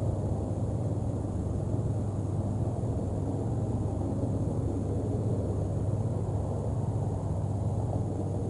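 Steady low rumbling outdoor background noise, strongest in the deep bass, unchanging, with no distinct events.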